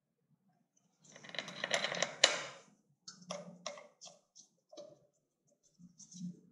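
Hands handling parts at a motorcycle air cleaner backing plate: about a second and a half of rustling with a sharp click about two seconds in, then a few lighter separate clicks and taps.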